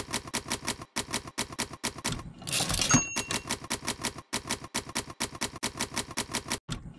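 Manual typewriter typing: a quick, even run of key clacks, about five or six a second, broken about two and a half seconds in by a carriage return and a bell ding before the clacking resumes.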